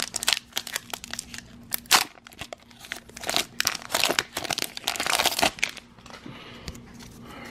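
Foil Pokémon card booster pack wrapper crinkling and tearing as it is opened by hand, in many short crackly rustles that thin out near the end.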